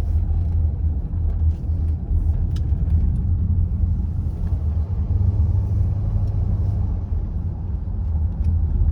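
Steady low rumble of a car driving along a road, heard from inside the cabin, with a few faint clicks.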